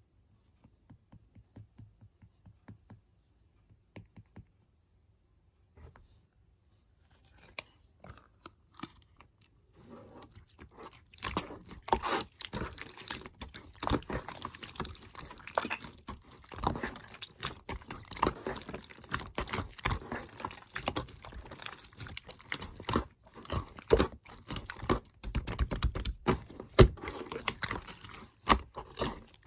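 Slime with clay mixed in being kneaded and squeezed by hand: sticky crackling and popping, only a few soft clicks at first, then dense and continuous from about ten seconds in.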